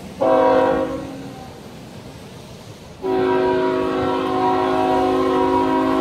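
Diesel locomotive's multi-chime air horn sounding on an approaching freight train: a short blast, then about two and a half seconds later a long blast that is still sounding at the end.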